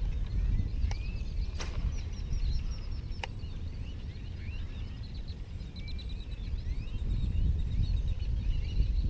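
Birds chirping and calling with many short, quick notes over a steady low rumble, with two sharp clicks about a second and a half and three seconds in.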